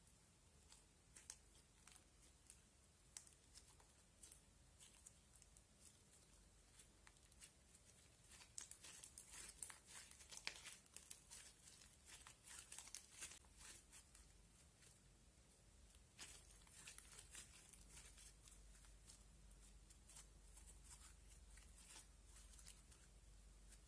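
Slime being squeezed and kneaded in the hands, giving faint, irregular clicks, crackles and little pops. They come thickest in a stretch about a third of the way in and again a little past the middle.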